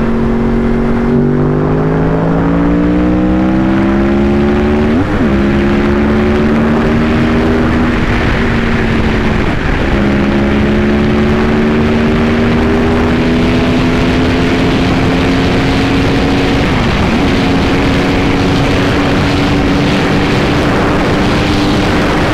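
Yamaha R1 inline-four engine accelerating hard, its pitch climbing through each gear and dropping at upshifts about five, ten and seventeen seconds in, with a steady rush of wind noise underneath.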